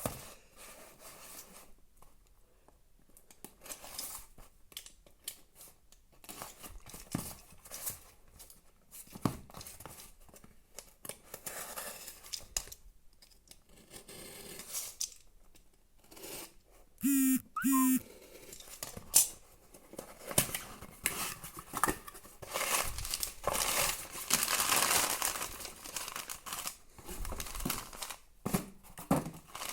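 A parcel's packaging being cut open, torn and rustled by hand: scattered snips and clicks, tearing and crinkling, with a brief squeaky screech just past the middle and denser, louder rustling in the last third.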